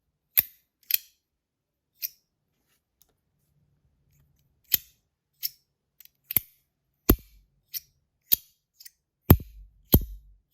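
Compoform V1.1 Mini magnetic metal fidget slider snapping its plates into place, about a dozen sharp, really loud clicks at an uneven pace, with a pause of a couple of seconds after the first three.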